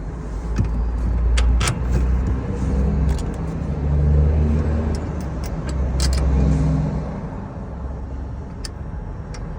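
Electric ratchet running in several bursts of about a second each, with a few sharp metallic clicks and knocks in between.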